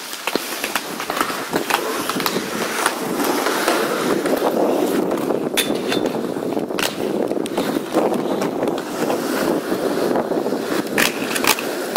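Inline skate wheels rolling steadily over rough asphalt, with scattered sharp clacks of skates striking and grinding metal obstacles.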